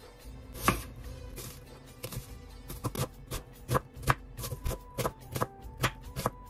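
Kitchen knife chopping onion on a wooden chopping board: a quick run of knocks, about four a second from about two seconds in, with soft background music.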